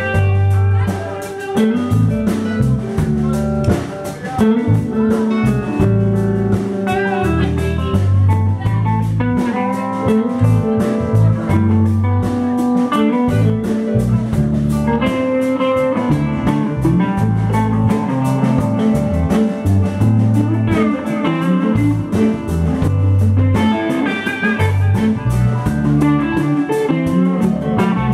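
Live band playing an instrumental jam: electric guitars playing over keyboard, a low bass line and a drum kit.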